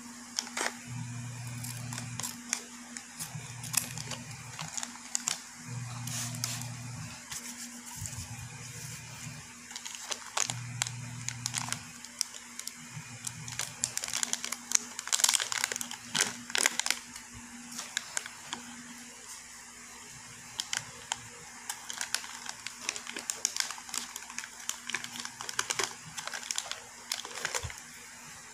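Plastic supplement pouch crinkling and rustling as it is handled and opened, with many scattered sharp clicks and crackles, busiest about halfway through. A faint low hum comes and goes in the first half.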